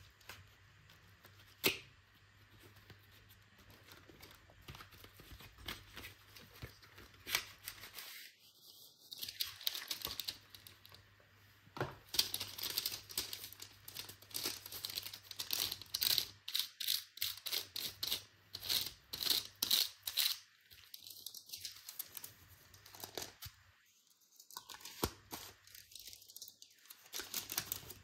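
A chocolate bar's cardboard sleeve being opened, then its aluminium foil wrapper crinkled and unfolded by hand. There are sparse clicks and rustles at first, with dense crackling through the middle.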